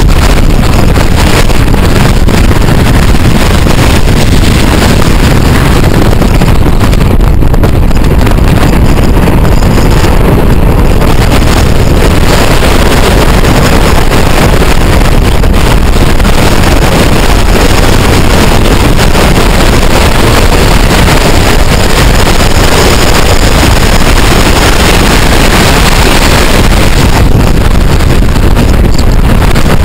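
Car driving at road speed: a loud, steady rush of wind buffeting the microphone over tyre and engine noise.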